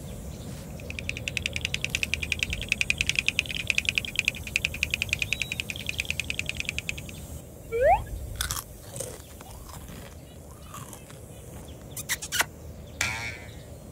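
Cartoon sound effects for a small creature: a fast, even run of crunchy clicks lasting about six seconds. A short rising squeak follows, then a few sharp scattered clicks.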